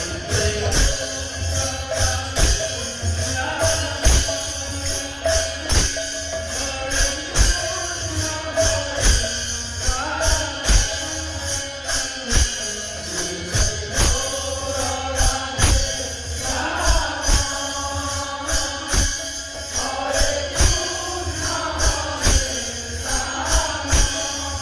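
Kirtan group performing devotional music: voices chanting a repeated line over steady rhythmic percussion, with jingling metal strikes and low drum beats.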